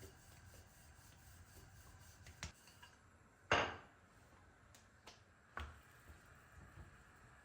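A few scattered kitchen knocks and clatters from utensils being handled, with one louder knock about three and a half seconds in and lighter taps around it.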